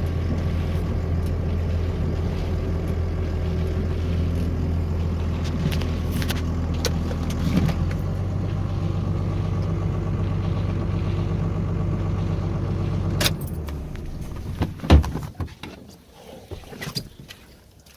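A vehicle engine idling steadily, then switched off about 13 seconds in. A couple of sharp thumps follow.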